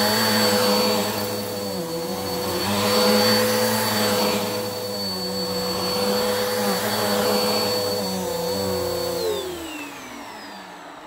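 Upright bagless vacuum cleaner running while pushed back and forth over carpet, its steady motor whine overlaid by a rush of suction that swells with each pass. About nine seconds in it is switched off and the motor's pitch falls as it winds down.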